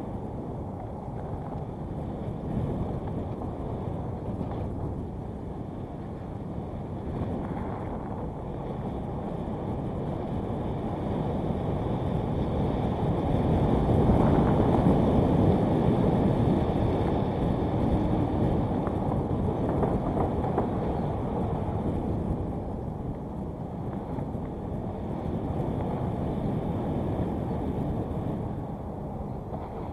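Wind rushing over the camera's microphone, mixed with the rolling noise of a mountain bike's tyres on a dirt trail while riding. It swells louder about halfway through, then eases off.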